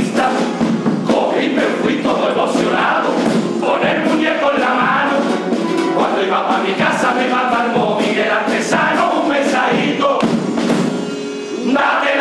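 Cádiz carnival chirigota: a group of men singing together, with Spanish guitar and snare drum accompaniment. The music dips briefly near the end.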